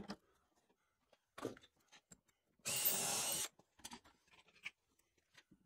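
Cordless Makita driver running in one short burst of just under a second, about two and a half seconds in, driving a screw into wood. Faint clicks and taps before and after it.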